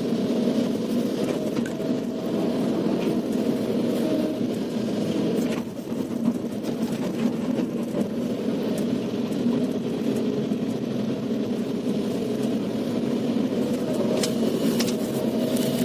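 Kobelco SK380XDLC excavator's diesel engine running steadily under load, with a brief dip about six seconds in and a few sharp metallic clicks near the end.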